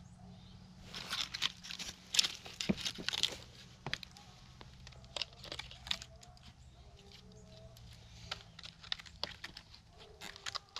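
Irregular rustling and crackling with sharp clicks, busiest from about one to four seconds in, then scattered.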